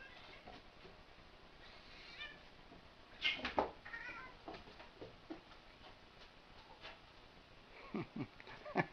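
A cat meowing faintly a few times, with a couple of knocks a little over three seconds in.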